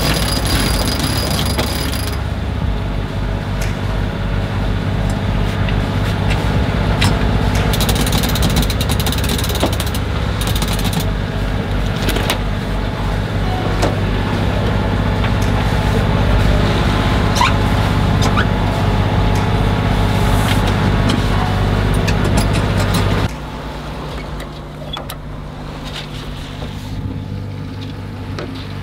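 Sailing yacht's engine running while the mainsail is unrolled from its in-mast furling, with a steady mechanical drone and scattered clicks and rattles. About 23 seconds in, the loudest part of the drone cuts off abruptly, leaving a quieter engine hum.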